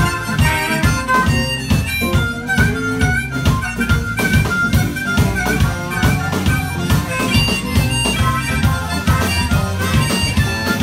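Harmonica played cupped against a handheld microphone, so it comes through amplified, with a live band of electric guitar and drums keeping a steady beat underneath.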